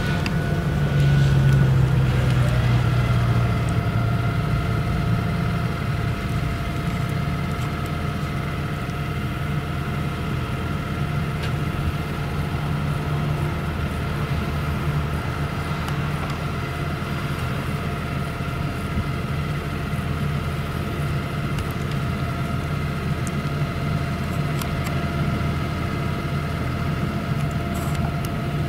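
Heavy farm machinery at work chopping sorghum: the MAN V8 diesel of a Claas Jaguar 970 forage harvester runs steadily, alongside a tractor pulling a forage trailer. A constant low drone carries several steady whining tones above it, and it is loudest in the first few seconds.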